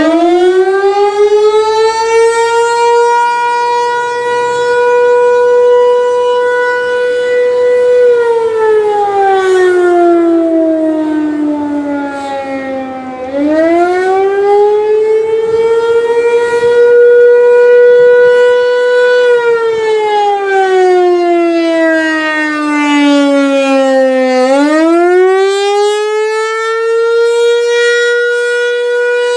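ASC T-135 AC/DC outdoor warning siren spinning up from a low pitch into the attack signal, a wail that rises, holds high for a few seconds, then slides down and climbs again, about every eleven seconds.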